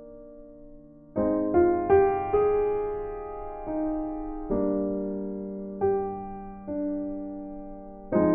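Slow keyboard music: soft chords struck every second or so, each left to ring and fade, coming in about a second in after a fading chord.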